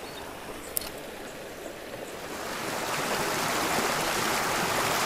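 Small river rushing over rocks, a steady noise of running water that grows louder about halfway through. A single light click sounds under a second in.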